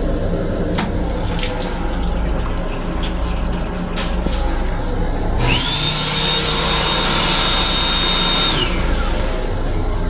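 The automatic sink faucet of an M7 railcar restroom switches on. A high whine rises about five seconds in, holds steady for about three seconds with water running into the basin, then winds down. Under it is the steady rumble of the moving train, with scattered clicks.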